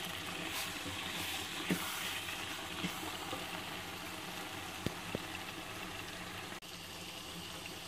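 Mutton and cabbage curry sizzling and bubbling in a pot as it is fried down (bhuna) over the heat: a steady hiss with a few faint clicks.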